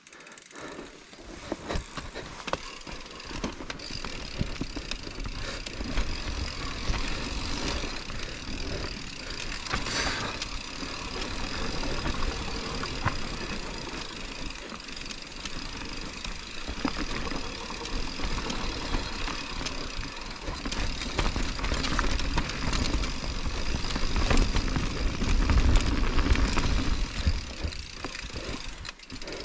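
Mountain bike descending a steep dirt trail: tyres running over loam, with the chain and frame rattling and clicking over bumps. Wind rumbles on the helmet camera's microphone, heaviest about three quarters of the way through.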